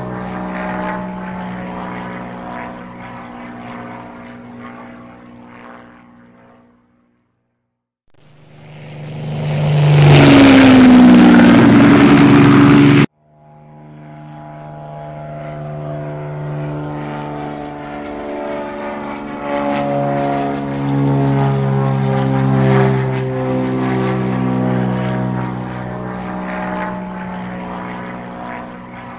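Radio-controlled model airplane motors and propellers running across edited clips: a steady hum with several pitches fades away, and after a brief gap a loud rushing pass swells from about eight seconds in and cuts off abruptly. The hum then returns, its pitches stepping up and down with throttle.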